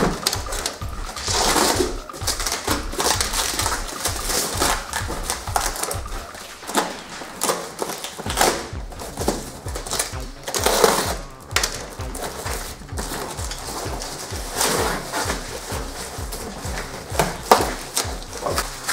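Packaging being torn off and crinkled by hand: parcel tape, cardboard and silver foil wrap ripped away in irregular bursts, over background music with a steady bass beat.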